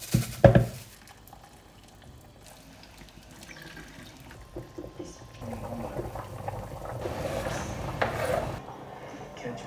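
Water running from a kitchen tap into a saucepan, filling it, for about three seconds before it is cut off. A short knock comes about half a second in.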